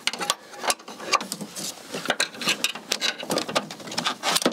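Irregular metallic clicks and knocks of a socket wrench working at an engine-mount bolt that won't come undone.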